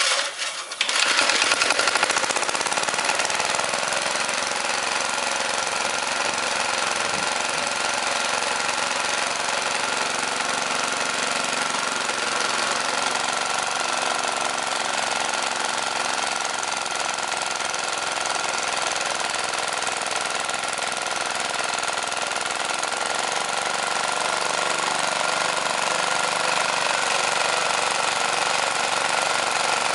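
Briggs & Stratton small engine catching on starting fluid with extra choke: a few ragged firing bursts in the first second, then it settles and runs steadily.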